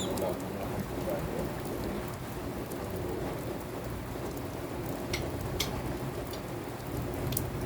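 Steady rain falling, with a few sharp ticks in the second half.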